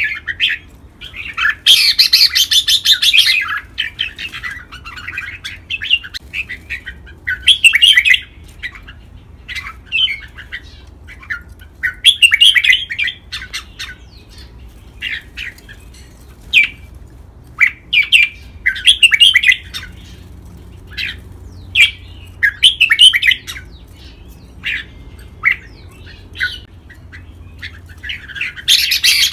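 Red-whiskered bulbul song: a run of short, bright, warbled phrases and chirps every few seconds, the longest and loudest about two seconds in and again near the end.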